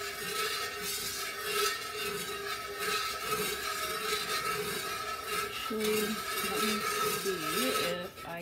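A metal utensil slowly stirring melted candle wax in an aluminium pouring pitcher, with soft repeated scrapes against the pot, over a steady hum.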